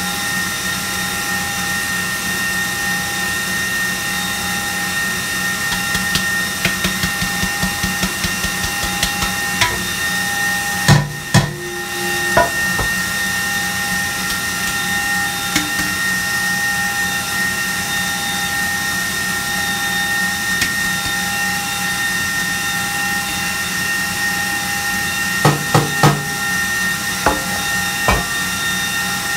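Electric stand mixer running with a steady whine while it beats the sponge-cake eggs. A cake pan being floured is tapped lightly and rhythmically, about three times a second, for a few seconds. A few louder knocks of the pan on the counter come a third of the way in and again near the end.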